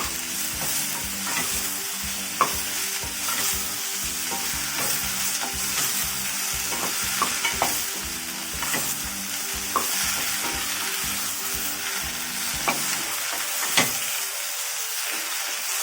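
Okra and carrot slices sizzling in hot oil as they are stir-fried in a pan, with scattered clicks of the stirring utensil against the pan.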